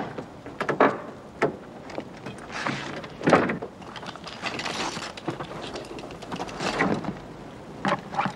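A car boot being opened and rummaged through: a string of clicks, clunks and rustling as objects inside it are shifted about.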